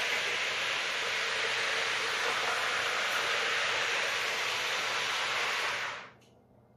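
HO-scale Piko model train running fast on sectional track, a steady hiss of its motor and wheels on the rails. About six seconds in it cuts off sharply: a DCC emergency stop cuts the power and the train halts.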